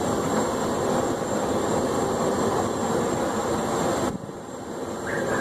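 Forge running with a steady rushing noise while a drift is heated red hot to temper a hammer head. The noise drops suddenly about four seconds in and picks up again near the end.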